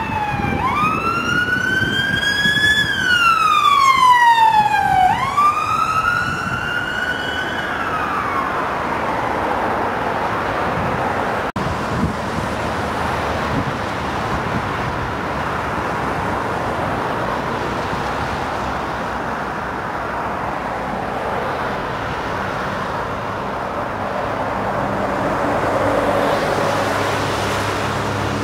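An emergency vehicle siren wailing, rising and falling slowly in pitch and fading out about eight seconds in, over a steady roar of road traffic. The traffic noise swells near the end as a large lorry passes close by.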